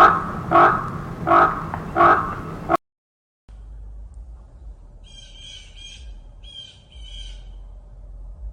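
A large bird squawks four times in quick succession, about once every two thirds of a second. After a cut there is a low rumble, with a small bird chirping in short high trills in the middle of it.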